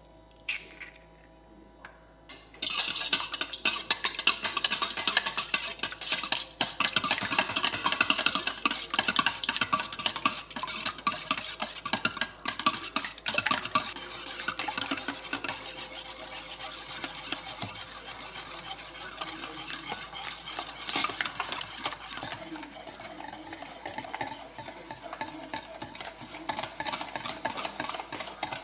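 Brownie mixture being stirred briskly in a mixing bowl: a steady, rapid scraping and clicking of the utensil against the bowl. It starts suddenly about two and a half seconds in after a few light clicks, and eases a little near the end.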